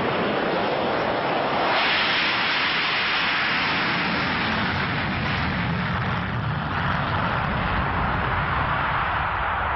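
Saab JAS 39 Gripen's single Volvo RM12 afterburning turbofan at full power with the afterburner lit as the fighter starts its takeoff roll. The loud jet roar surges about two seconds in and takes on a deeper rumble near the end as the aircraft moves away.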